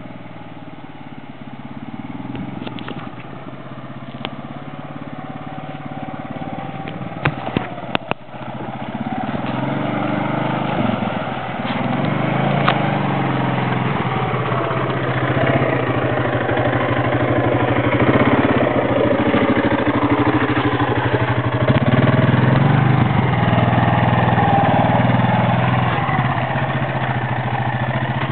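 ATV engine running on a trail ride, its pitch rising and falling with the throttle. It grows louder over the first ten seconds or so, with a few sharp clicks about seven to eight seconds in.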